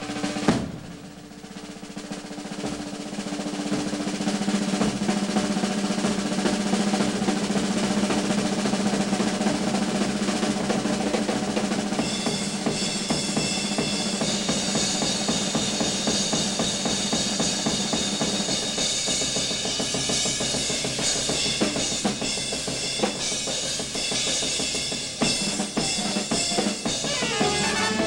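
Big-band drum solo on a Slingerland drum kit: a sharp accent, then a sustained roll that swells in loudness over the next few seconds, with cymbals joining from about halfway through. Near the end the band's brass comes back in.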